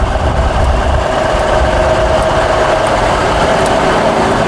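Diesel engine of a big semi tractor running steadily as the truck drives past close by, with a steady drone.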